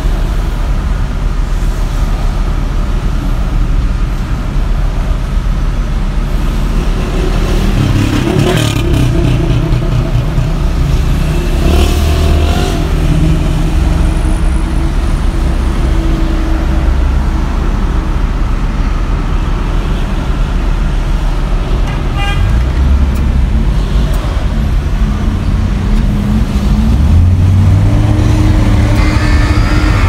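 Car engine idling, heard from inside the cabin while stopped in traffic, with the rumble of surrounding traffic. Near the end the engine note rises as the car pulls away.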